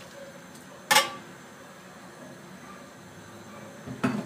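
Two sharp knocks, a loud one about a second in and another near the end, as a spatula and a glass bowl knock together while sardines are scraped from the bowl into a saucepan.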